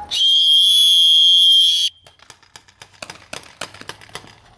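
One long, loud, high-pitched signal tone of nearly two seconds that starts and cuts off abruptly, signalling the start of a paintball game. After it comes a rapid, irregular run of sharp pops from paintball markers firing.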